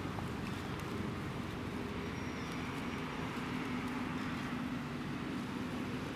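Steady low rumble of a running engine, with a faint steady hum in it.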